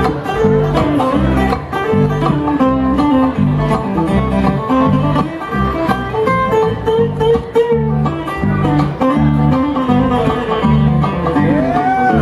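Bluegrass band playing an instrumental break with no singing: banjo and guitar picking at a steady beat.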